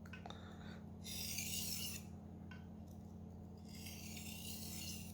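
Steel knife blade drawn across a 400-grit whetstone in two slow scraping strokes, each about a second long. These are light burr-removing passes: the burr is being crushed and removed on the stone.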